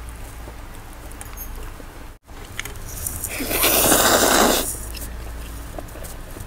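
A person slurping a mouthful of spicy instant noodles off chopsticks, one loud slurp lasting about a second a little past the middle, with faint small clicks of chopsticks before it.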